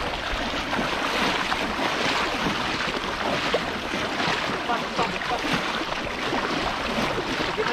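Steady rushing noise of water, with wind on the microphone.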